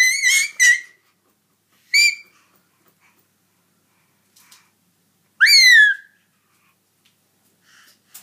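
An 11-month-old baby giving high-pitched squeals. The first is long and runs on from a rising start; a short one comes about two seconds in, and a falling squeal comes a little past halfway, with pauses between.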